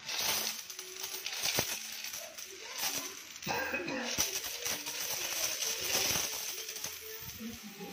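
Coins pouring out of a stainless steel tin onto a child's lap and a tiled floor: a steady jingling and clinking of metal coins against each other, the tin and the floor.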